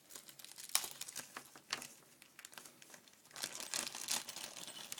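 Small plastic Ziploc bag crinkling and rustling in the hands as it is opened, with irregular crackles that get busier and louder past the middle.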